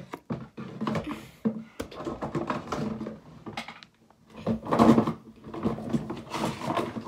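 Homemade slime being pressed and kneaded by hand on a wooden table, giving irregular squishing sounds and clicks.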